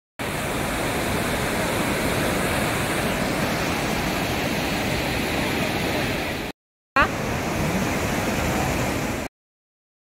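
Steady rush of a waterfall, water cascading over broad rock ledges. The sound drops out twice for under a second between edited clips, with a brief click where it comes back.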